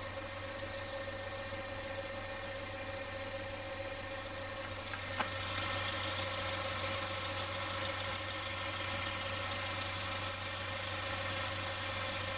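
Mercedes-Benz W246's M270 four-cylinder turbo petrol engine idling on a cold start, with a fast, even, high-pitched ticking ('chi-chi-chi-chi') laid over the idle, an abnormal noise. The treble is boosted, which brings the ticking forward.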